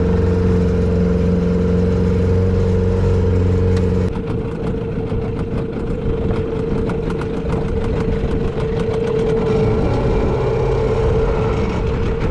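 A small boat's outboard motor running steadily. About four seconds in its deep steady note drops away and it goes quieter and rougher, with a rapid fine ticking, as it eases off.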